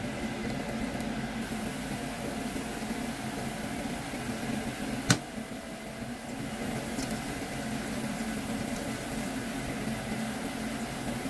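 Chopped onions frying in oil in a nonstick pan, a steady sizzle over a constant mechanical hum, with one sharp click about five seconds in.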